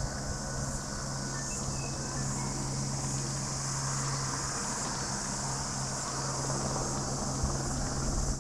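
Motorcycle engine running at a steady, unchanging note, with a high, steady chirring of insects over it.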